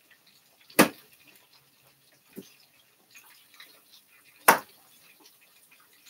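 Two sharp knocks of a kitchen knife cutting through pineapple onto a cutting board, about a second in and again near the end, with a lighter tap between. Faint crackling of chicken breast frying in oil in between.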